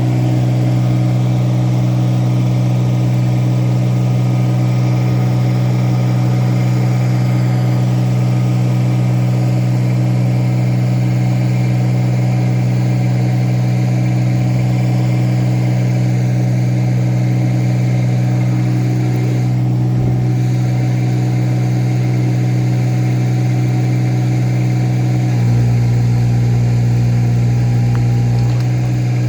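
An engine running steadily at a constant pitch, working a little harder for about three seconds near the end before settling back.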